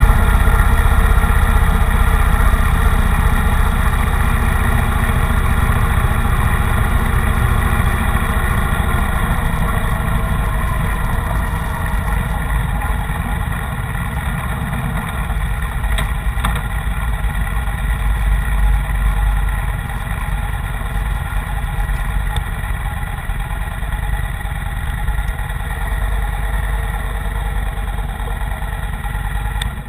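Motorcycle engine running through a ride at low town speed, with a heavy low rumble of wind and road noise on the microphone. It settles a little lower about two-thirds of the way through as the bike slows and pulls up.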